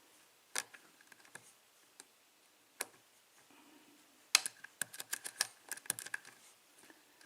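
Small metallic clicks of a lock pick and tension wrench working in the keyway of a euro cylinder lock: a few isolated clicks, then a quick flurry of ticks about four seconds in, as the pick probes pin 1, which is not yet setting.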